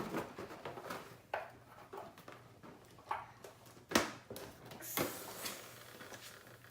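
Quiet handling noises: a few light taps and clicks, one sharper knock about four seconds in, and a short rustle around five seconds.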